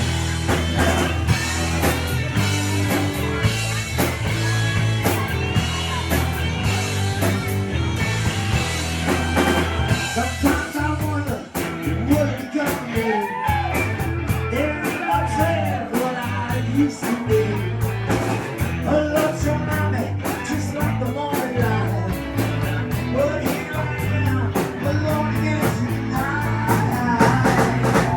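Rock band playing a song live: bass and drums under a lead line with bending, sliding notes in the middle of the passage.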